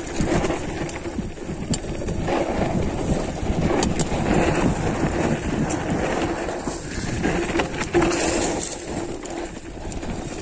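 Mountain bike riding downhill over a dirt trail: a steady rough rumble of tyres and riding noise, with scattered sharp clicks and rattles from the bike.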